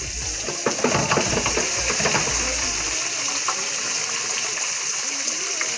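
Floured fish fillets deep-frying in a countertop deep fryer, the oil bubbling and sizzling steadily. In the first few seconds it is mixed with several clicks and knocks.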